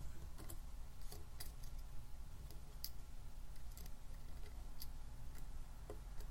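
Scattered light clicks and ticks of small screws being handled and fitted into the mounting holes of a laptop LCD panel's frame.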